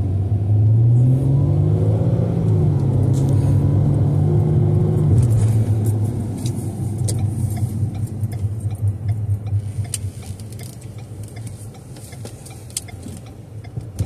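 Car engine, heard from inside the cabin, accelerating away from a stop: its pitch rises over the first couple of seconds and holds. About five seconds in it eases off to a lower, quieter rumble of engine and tyres with scattered light clicks.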